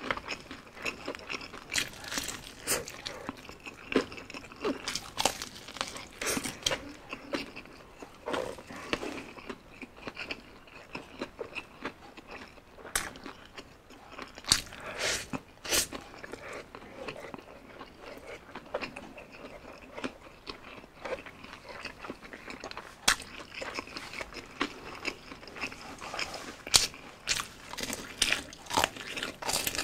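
Biting into and chewing crispy fried chicken, a run of irregular sharp crunches, some louder than others.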